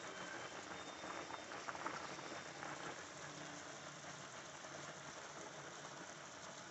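Stew chicken simmering in gravy in a frying pan: a steady bubbling, crackling hiss, with a few louder pops about one and a half to two seconds in.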